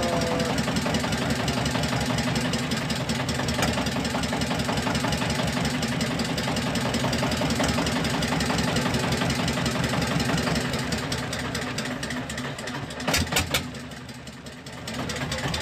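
A boat engine running steadily with a fast, even beat. About thirteen seconds in there are a few sharp knocks, then the engine sound drops for a moment and comes back.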